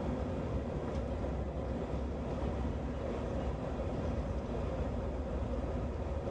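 Steady cabin noise of an Airbus A319 taxiing, heard from inside over the wing: the jet engines at low thrust with a deep, even rumble from the wheels rolling on the taxiway.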